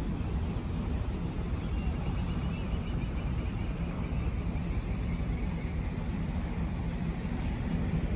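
Hummer H2's V8 engine idling with a steady low rumble.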